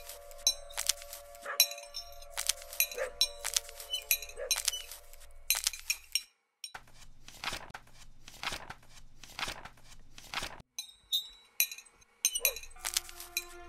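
Knife and fork clinking and scraping on a china plate in quick, irregular strikes, over sustained musical tones. In the middle the strikes settle into an even run of about three a second, then break off briefly before the clinking returns.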